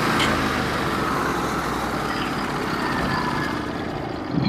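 Band sawmill cutting a white oak log: a steady noise of the running mill and band that dies away over the last second, with a short knock at the very end, as the band runs into metal embedded in the log.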